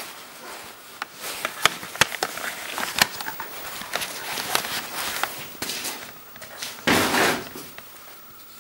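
Irregular clicks and knocks of footsteps and handling, then a louder rushing scrape about seven seconds in.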